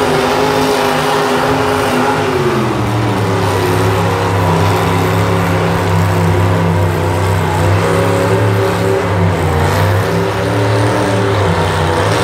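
Stock-class pulling tractor's engine running hard as it drags a weight-transfer sled down the track. About two seconds in its pitch drops and it lugs along lower as the sled's weight builds, then climbs again near the end.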